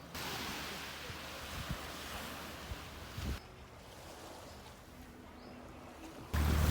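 Wind and sea noise on the microphone, changing abruptly twice. Near the end a boat engine's steady low drone comes in suddenly and loud.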